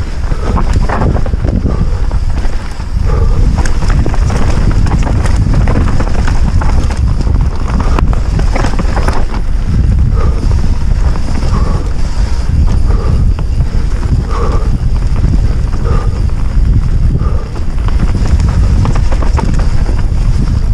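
Orbea Rallon full-suspension mountain bike descending a rough forest dirt trail at speed: a steady rumble of wind on a helmet camera's microphone and tyres on dirt, with many knocks and rattles of the bike over roots and rocks.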